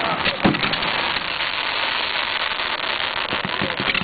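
Fireworks crackling, a dense run of small sharp cracks, with two louder bangs within the first half second.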